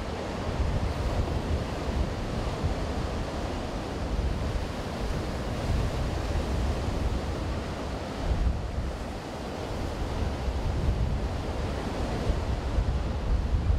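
Ocean surf breaking and washing up a sandy beach, a steady rushing noise, with wind buffeting the microphone in uneven low gusts.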